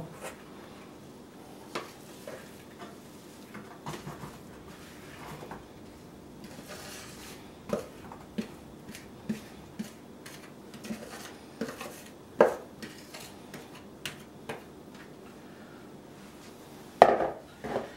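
Wooden spatula scraping and knocking against a plastic mixing bowl as a crumbly buttered biscuit mixture is scooped out into a metal springform pan: scattered light knocks and scrapes at irregular intervals, a louder knock about twelve seconds in.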